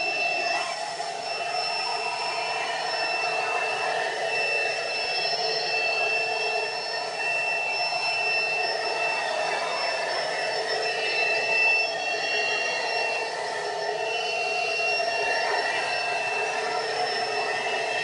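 Tub-style vacuum cleaner running steadily with a high-pitched motor whine, its hose and floor tool sucking up polystyrene beanbag beads from a carpet.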